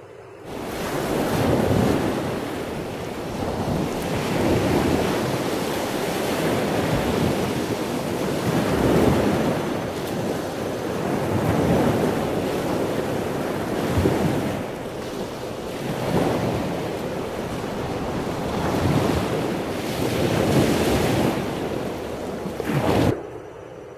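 Sea surf breaking on a shore, the wash of the waves rising and falling in swells every two to three seconds. It sets in suddenly and cuts off abruptly near the end.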